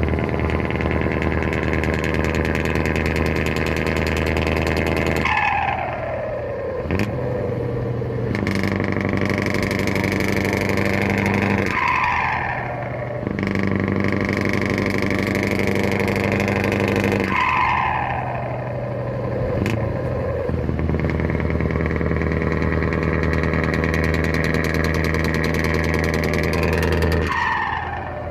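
Scania V8 truck engine held at high revs, with a turbo whistle. Four times the revs are released and the whistle falls away in a long downward glide before the engine is revved up again.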